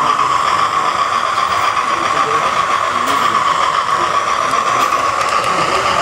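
Hornby OO-gauge model of the LNER P2 steam locomotive 2001 Cock O' The North, fitted with a TTS sound chip, running at speed with its coaches. It makes a steady rushing sound of wheels on the track, with the chip's steam sound from the model's speaker.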